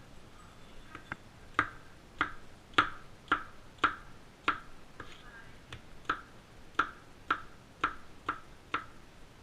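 A steady series of short, sharp knocks, about two a second, each with a brief ring.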